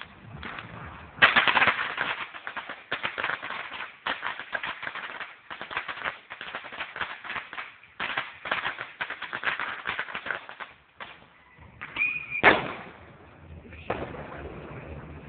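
A long string of firecrackers going off in rapid succession, a dense crackle of small bangs. It thins out briefly, then comes one louder bang about twelve seconds in.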